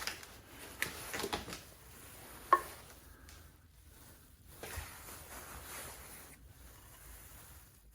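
Handling noise from the spare tire carrier's hinge part being turned over and inspected: a few light clicks and knocks, a sharper knock about two and a half seconds in, then soft rubbing.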